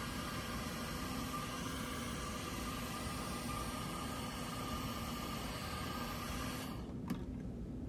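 Handheld hair dryer running steadily, an even hiss with a low hum, blowing on a freshly glued wig cap to set the glue. Near the end the hiss thins out sharply and a faint click follows.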